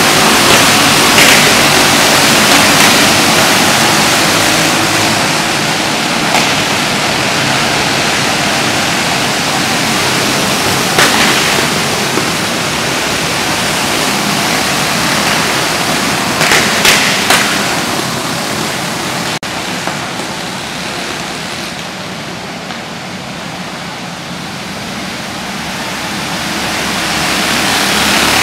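A pack of racing karts running at speed around an indoor dirt oval, their engines blending into one loud, dense noise. A few short, louder spikes come through. The noise dies down somewhat about two-thirds of the way in and swells again near the end as karts pass close.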